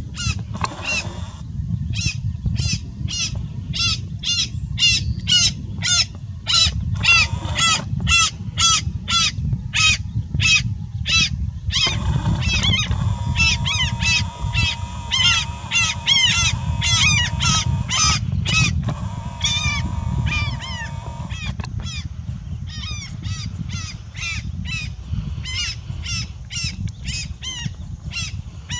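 Coscoroba swans calling: a long run of repeated honking calls, about two a second.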